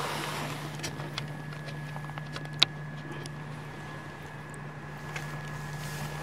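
Small clicks and light water sounds as a landed trout is handled and unhooked in the shallows, over a steady hum. The sharpest click comes about two and a half seconds in.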